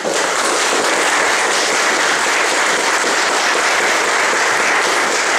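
Church congregation applauding. The clapping breaks out all at once and holds steady.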